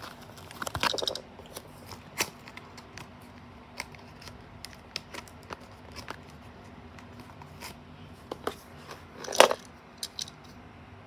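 Tomica Fiat 500e die-cast toy car being handled and set on a wooden tabletop: scattered light clicks and taps, with a louder handling sound about nine seconds in.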